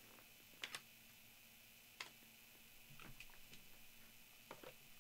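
Faint clicks and rustling from handling trading cards and their boxes: a couple of sharp taps under a second in and another at two seconds, then soft shuffling with small ticks.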